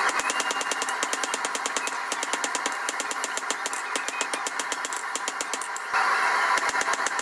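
Hand hammer blows on a red-hot railroad spike over a steel anvil, a fast run of sharp strikes. Near the end the hammering stops and the gas forge's burner hiss swells for about a second.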